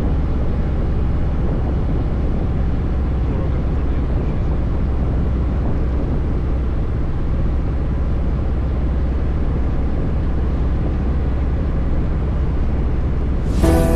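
Wind rushing over the microphone, with the Kawasaki Voyager 1700's V-twin engine running steadily under it while riding.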